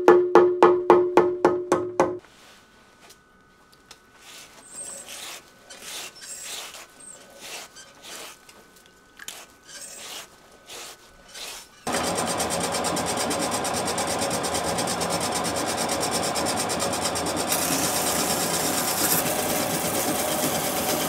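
Kitchen knife blade pressed against a motor-turned, water-wetted wooden sharpening wheel (kido), a steady rasping grind that starts suddenly about halfway through: the finishing pass that polishes away the stone's scratch marks. Before it comes quick rhythmic rubbing, about four strokes a second for the first two seconds, then a quieter stretch of faint, scattered rubbing.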